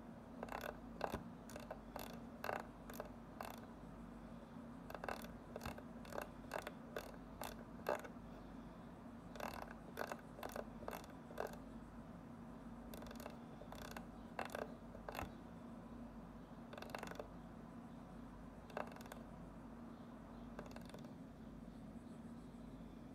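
Rotary encoder knob on a Nuclear Pioneer MCA gamma spectrometer clicking through its detents in quick irregular runs as it is turned to step the cursor along the spectrum. The clicks come thickly for the first two thirds and grow sparse near the end, over a faint steady hum.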